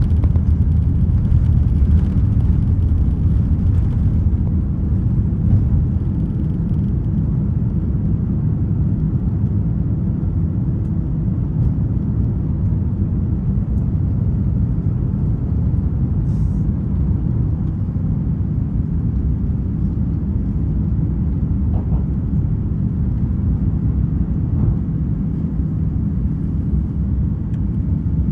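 Steady low rumble of airliner cabin noise aboard an Airbus A350-900.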